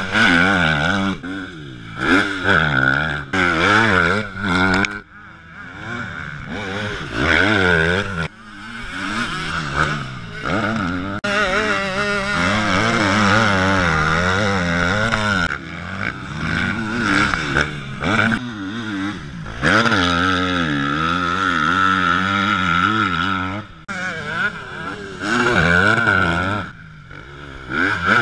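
Motocross dirt bike engine revving hard and falling off over and over as the bike brakes into corners and accelerates away, passing close several times, each pass swelling loud then fading.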